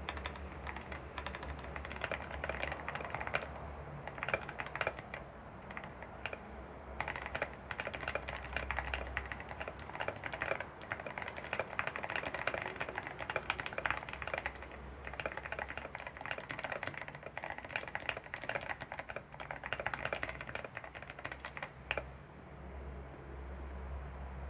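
Typing on a modded CIY Tester 68 mechanical keyboard: a continuous stream of keystroke clicks in quick runs, stopping about two seconds before the end. A steady low hum sits underneath.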